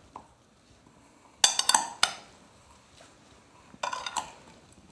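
Metal spoon clinking against a ceramic bowl while stirring sugar into quartered strawberries. The clinks come in two short runs, about a second and a half in and again near the end.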